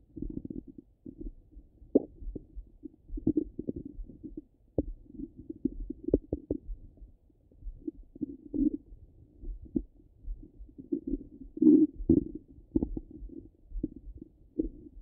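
Stomach gurgling and rumbling heard through a stethoscope: irregular low-pitched gurgles broken by short pops and clicks, with the loudest gurgle about three-quarters of the way through.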